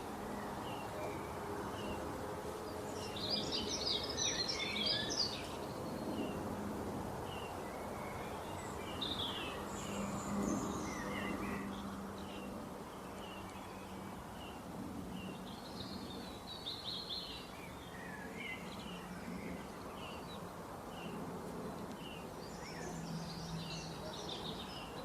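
Small birds chirping and twittering, with a few denser bursts of song, over a steady wash of sea waves.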